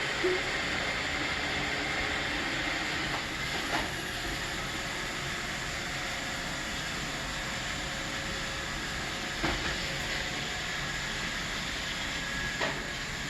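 Roomba robot vacuum running with a steady whir and hiss, broken by a handful of short knocks.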